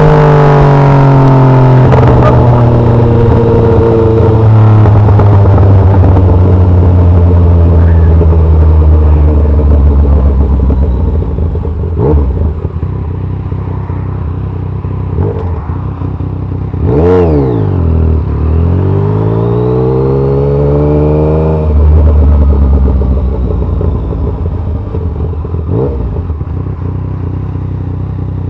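Yamaha MT-09's inline three-cylinder engine through an SC Project aftermarket exhaust, falling in pitch in steps as the bike slows over the first ten seconds, then running low. About two-thirds through it gives a quick throttle blip and a rising rev that cuts off sharply, with a few sharp pops along the way.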